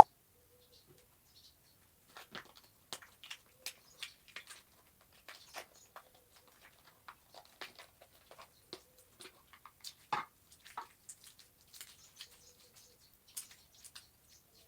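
Slime being squeezed and poked by hand, giving scattered small wet clicks and pops, a few a second, the loudest about ten seconds in.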